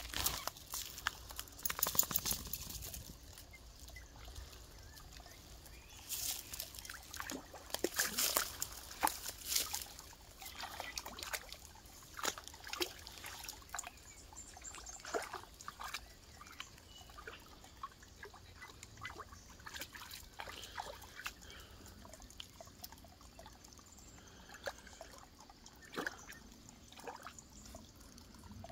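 Dogs wading in a shallow, muddy creek pool: irregular bursts of splashing and sloshing water, busiest in the first ten seconds, then sparser.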